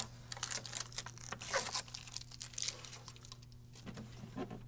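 Blue packing tape being peeled off a printer's plastic paper tray and crumpled in the hand: irregular crackling and tearing rustles that die down near the end.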